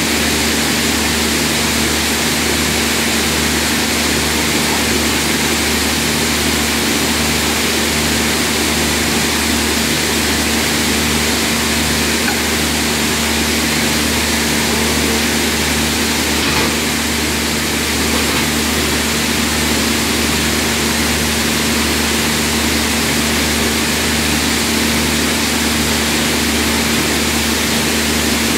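Heavy industrial machinery running steadily: a constant loud drone with a steady hum and a low throb pulsing about once a second.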